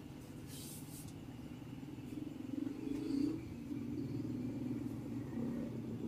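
Steady low rumble and hum in the background, with a brief soft hiss just under a second in.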